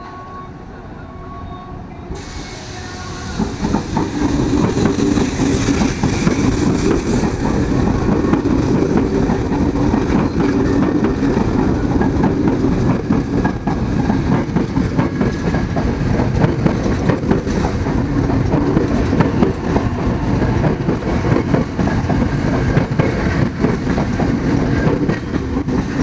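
KRL electric commuter train running past along the platform, its wheels clattering over the rail joints in a rapid, dense rhythm. The sound swells in about two seconds in and then stays loud.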